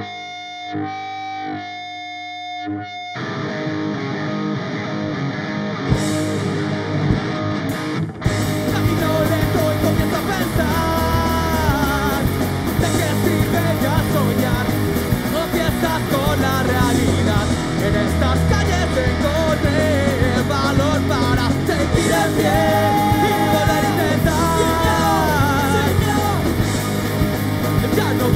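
Rock band playing live: an electric guitar picks a repeated figure almost alone. About three seconds in the sound swells, and from about eight seconds in drums, bass and distorted guitars play at full.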